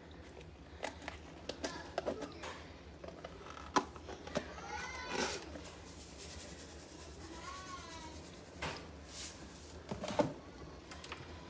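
Light clicks and taps of a spice container being shaken over a skillet and handled at the cupboard. Around the middle there are two short animal calls, rising and falling in pitch.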